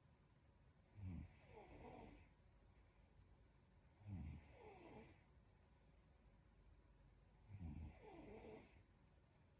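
A young woman snoring in her sleep, quietly: three snores about three seconds apart, each lasting about a second, a low buzz followed by a breathier, higher part.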